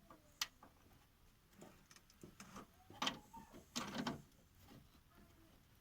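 A few faint metallic clicks and scrapes, with a faint squeak, as a thread-cutting tool is fitted into the stripped bolt hole of a car's engine skid plate. The clicks come about half a second in, at about three seconds, and in a small cluster around four seconds.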